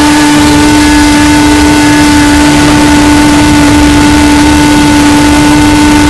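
Loud, steady tone held at one pitch, deliberately overdriven into harsh clipping distortion that smears noise over the whole sound.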